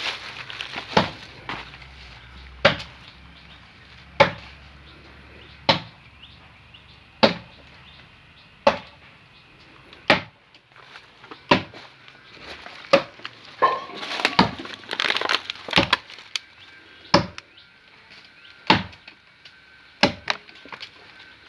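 Hand chopping into a tree trunk during felling, one sharp blow about every second and a half. There is a rougher, noisier stretch a little past the middle.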